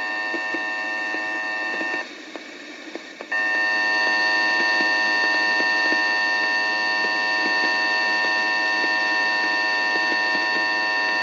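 RadioShack NOAA weather radio sounding its alert tone for a severe thunderstorm warning. A loud, steady electronic tone drops out for about a second about two seconds in, then comes back and holds.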